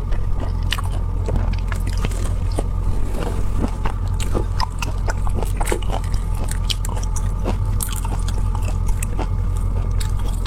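Close-miked chewing and biting into shell-on marinated black tiger prawns, with many irregular small crackling clicks, over a steady low hum.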